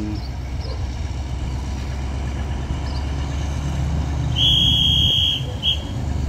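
Diesel locomotive engine running as it hauls a train of tank wagons closer, its low rumble growing louder. About two-thirds of the way in, a high steady tone sounds for about a second, then once more briefly.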